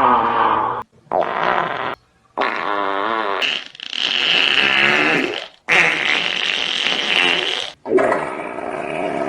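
A string of fart sound effects, about six in a row, each one to two seconds long, starting and stopping abruptly. Some wobble up and down in pitch.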